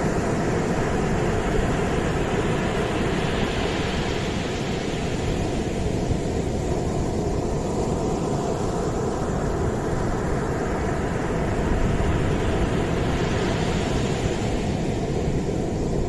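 Sea surf breaking and washing up a sandy beach: a continuous rushing roar with a deep rumble underneath, its hiss swelling twice as waves break.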